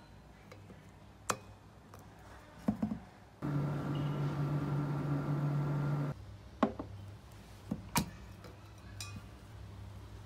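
Sharp clicks and knocks of a stainless steel vacuum flask and its lid being handled, with about three seconds of steady refrigerator hum in between that starts and stops abruptly.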